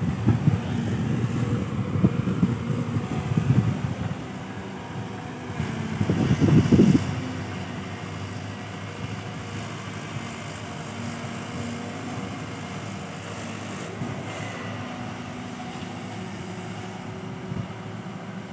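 Caterpillar 313D2 GC excavator's diesel engine running as the machine moves and digs, with louder, uneven spells in the first seven seconds, then settling to a steady lower running sound.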